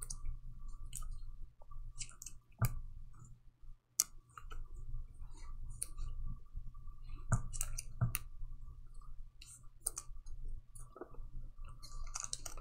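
Sports trading cards handled by gloved hands and set down on a table: scattered light clicks and taps, a few sharper ones spread through, over a faint steady hum.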